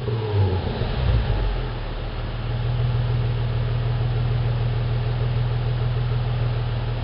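2006 Nissan 350Z's 3.5-litre VQ35DE V6 running through a Nismo S-Tune cat-back exhaust, its revs falling away in the first second or so and then settling to a steady idle.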